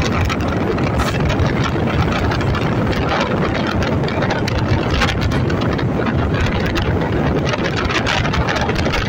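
MEMU electric train running at speed, heard on board: a steady rumble and rattle from the running gear and track, with wind buffeting the microphone.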